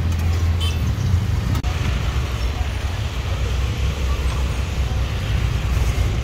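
Steady street noise: a low traffic rumble with a background hiss, briefly cut off about a second and a half in.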